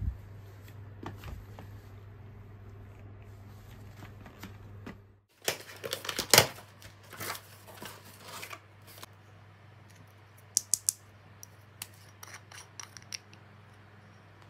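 Cardboard box flaps and a plastic bag crackling and rustling as a small parcel is opened, then a few short sharp clicks of a small plastic jar being handled. Before that, soft footsteps over a steady low hum.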